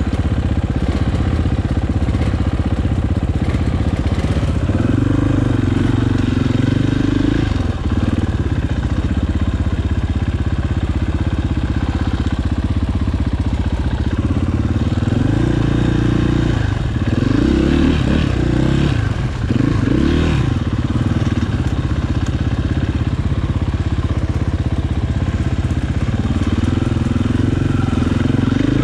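Enduro motorcycle engine running, its revs rising and falling with the throttle, with several quick rises and drops in the middle.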